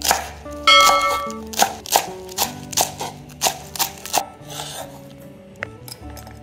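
A large kitchen knife chops green onions on a wooden cutting board, striking about two to three times a second. The strikes stop a little past four seconds in. Background music plays throughout.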